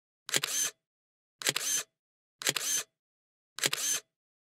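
Film camera shutter click followed by a short motor-driven film-advance whir, repeated four times about once a second, the same sound each time.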